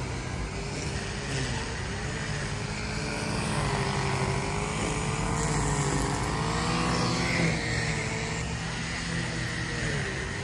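A motor engine running, its pitch wavering slowly up and down, over steady street traffic noise.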